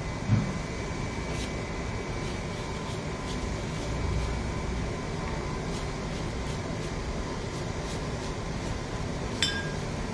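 Steady background hiss and hum while a brush works on paper, with one short ringing clink near the end as the brush knocks against the porcelain dish.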